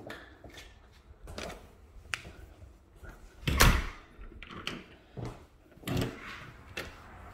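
A door being opened and handled: a string of latch clicks and knocks, the loudest a thump about three and a half seconds in.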